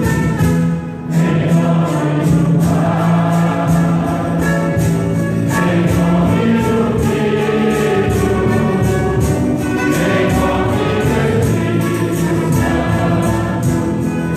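Religious choral music: many voices singing together over instruments with a steady beat.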